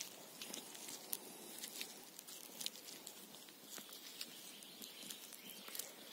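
Faint scattered small clicks and light rustling from hands handling a freshly picked orange-cap bolete mushroom.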